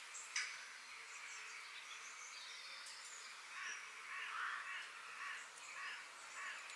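Forest ambience with wild birds calling: thin high chirps, a sharp click just under half a second in, and several louder, rougher calls in the second half.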